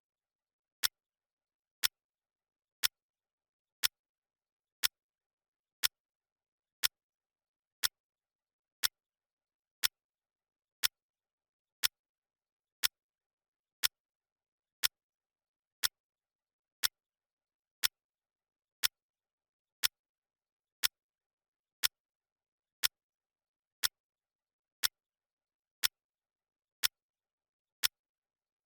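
Clock ticking sound, one sharp tick each second with silence between.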